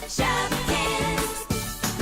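Upbeat background music with a regular beat and bright pitched notes.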